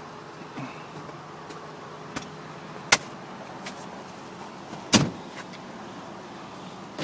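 Two sharp knocks about two seconds apart, the second with a heavier dull thud, from a car's doors or panels being handled, with a few fainter clicks over a steady low hum.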